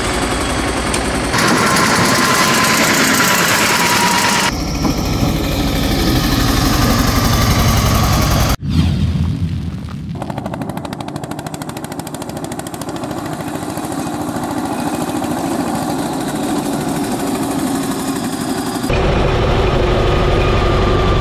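Diesel tractor engines running with a fast, even pulse, heard across several edited shots. The sound changes abruptly at each cut, with a momentary drop about eight and a half seconds in.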